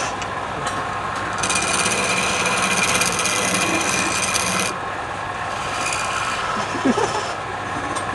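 Wood lathe running with a turning tool cutting into the spinning wood. The cut gets louder and higher for about three seconds from a second and a half in.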